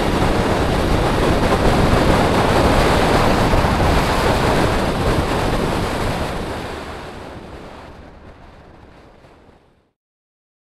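Sea surf and wind: a steady rushing noise that fades away, ending in silence near the end.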